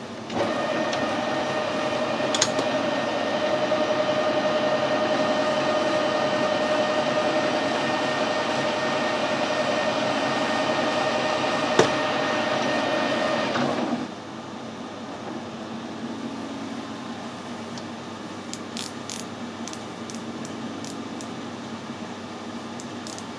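Metal lathe running with a steady whine while it takes a light finishing pass on a small turned shaft. It starts about half a second in and switches off about 14 seconds in. A few light clicks follow near the end as a micrometer is set on the shaft.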